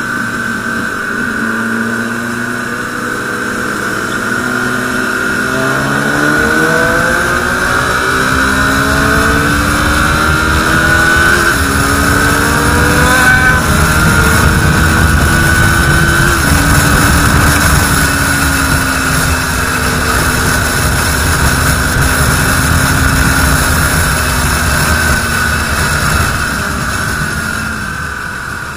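KTM RC 390's single-cylinder engine accelerating hard on the highway, its pitch climbing in steps through several upshifts, then holding a steady cruise under heavy wind rush on the microphone. The engine eases off near the end.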